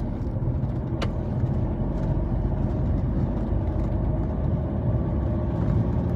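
Low, steady rumble of a vehicle's engine and its wheels on a rough dirt track, heard from inside the cabin at a crawl, with a single sharp click about a second in.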